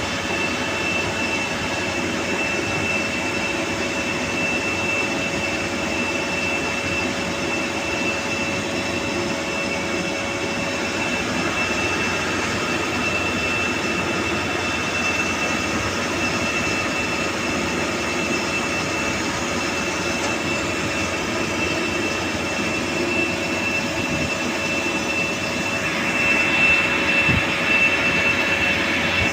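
Lathe running steadily, a constant machine whine with a higher whine above it; a louder hiss comes in for a few seconds near the end.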